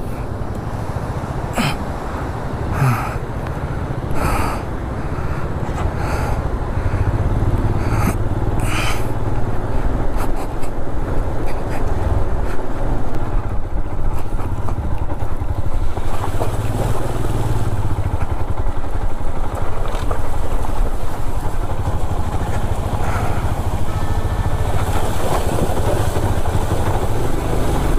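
Single-cylinder Royal Enfield Himalayan 411 engine running under way on a rough off-road track. A few sharp knocks and rattles from the bumps come in the first several seconds.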